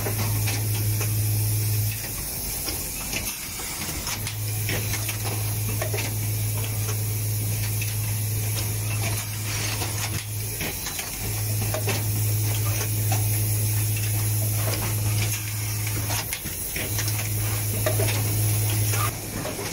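Automated motor-housing assembly machine running: a loud low hum switches on for several seconds at a time and cuts off, over a steady hiss, with sharp clicks and clacks of the pneumatic actuators scattered throughout.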